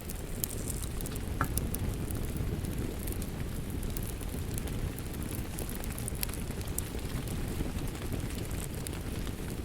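Steady rain on a roof, with crackles and sharp pops from a wood fire scattered irregularly through it.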